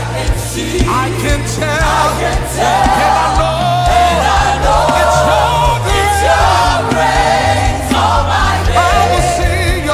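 Live gospel worship music: sustained sung lines with vibrato over a band with a steady bass line and drum beats.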